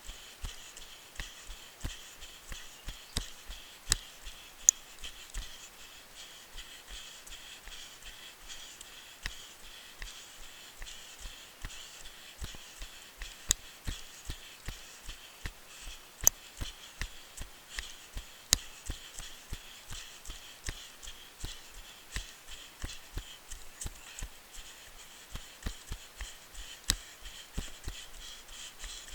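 A runner's footfalls on a dirt forest trail, a steady rhythm of soft thuds about three a second, with a few sharper clicks and a faint, steady high-pitched hum in the background.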